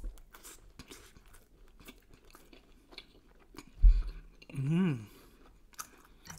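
Close chewing of a mouthful of lamb shish with bread and kidney bean stew, with many small wet clicks. A low thump comes about four seconds in, then a short hummed "mmm" that rises and falls in pitch.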